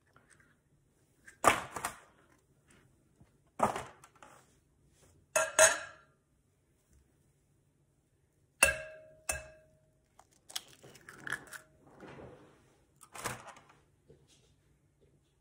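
Raw eggs being cracked and separated over a clear glass mixing bowl: a series of sharp taps and shell cracks, two of them about nine seconds in leaving the glass ringing briefly, then softer crackling and rustling of shell near the end.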